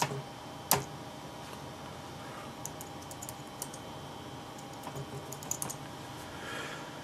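Computer keyboard keys being typed in short runs of a few keystrokes, entering password guesses at a BIOS prompt, with one louder key press about a second in. A steady faint hum runs underneath.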